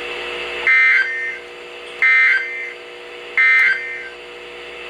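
Emergency Alert System end-of-message signal: three short warbling data bursts of SAME digital code, a little over a second apart, marking the end of the alert, over a steady hum.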